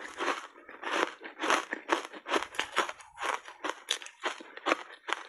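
Close-miked crunching of foam reshape ice coated in matcha powder, bitten and chewed in a rapid string of crisp crunches, about three to four a second.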